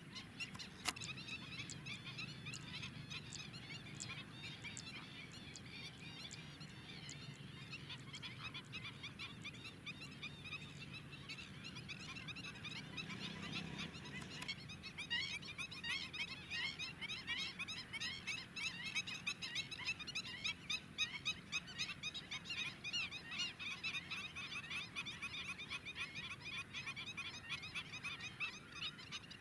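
A flock of greater flamingos calling: many goose-like honks and gabbling calls overlapping in a continuous chatter, growing busier about halfway through.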